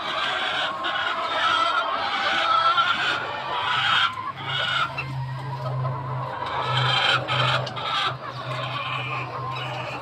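A large flock of chickens clucking and calling all at once, many birds overlapping without a break.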